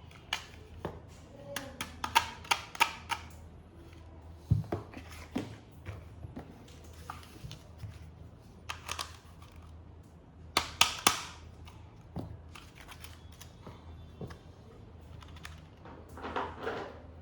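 A toy and its plastic packaging being handled: a string of sharp clicks and taps, a dull knock, and a louder cluster of clicks around the middle, with some rustling near the end.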